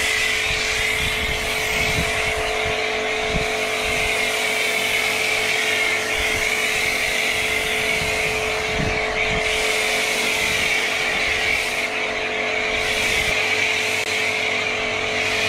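Pressure washer running steadily while a snow foam lance sprays thick foam onto a van: a continuous motor hum under a loud hiss of spray.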